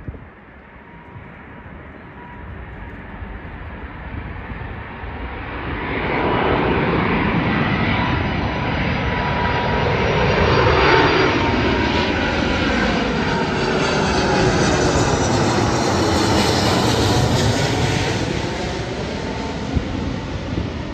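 Airbus A330 jet airliner on final approach passing low overhead: its engine noise builds from a distant rumble with a thin steady whine, swells loudest as it passes over with a sweeping, phasing rise and fall, and stays loud as it moves away.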